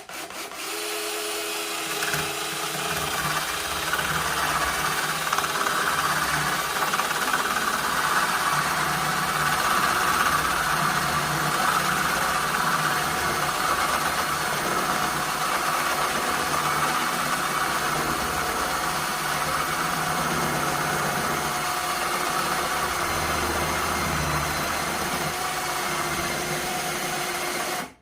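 Electric drill running steadily under load as a 1 3/8-inch bit bores through a piece of tree branch. It starts abruptly and cuts off suddenly near the end; the boring goes slowly, harder than expected.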